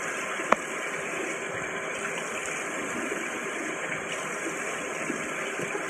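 Bathroom tap running steadily into the sink while cleanser is rinsed off a face with splashed water; one sharp click about half a second in.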